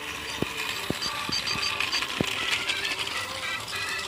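Motorised TrackMaster toy train running on plastic track: a steady whirr from its small motor, with about five sharp clicks in the first half.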